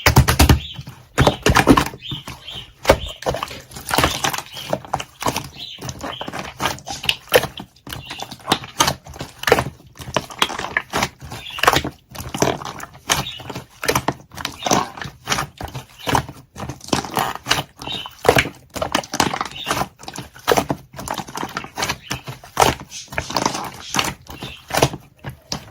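Slime being squished and stretched by hand, making a steady run of irregular sticky clicks and pops.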